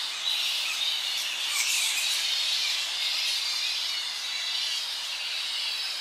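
A roosting colony of Tonga flying foxes (Pacific flying foxes) calling: a continuous, dense chatter of high-pitched squeals and squawks. Birds, among them barking pigeons and red-vented bulbuls, sing behind.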